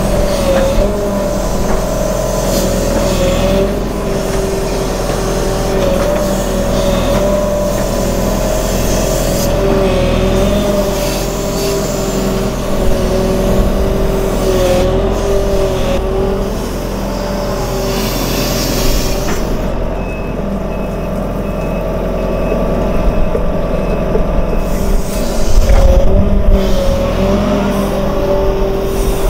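Sumitomo crawler excavator working wet paddy mud with its bucket: the diesel engine runs steadily under load with a steady whine that wavers slightly in pitch. The low rumble grows louder and rougher near the end.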